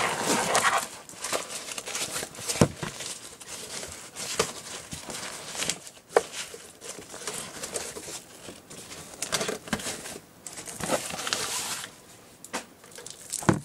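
A bag rustling and crinkling as a computer power supply is handled and drawn out of it, with a few sharp knocks along the way.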